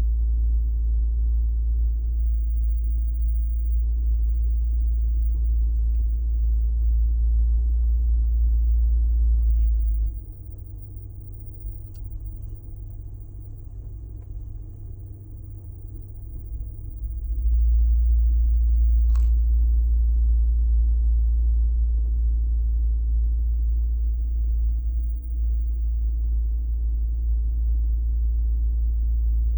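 A deep, steady droning rumble, the unwanted drone noise of a Corsair. It drops away sharply about ten seconds in and comes back about seven seconds later.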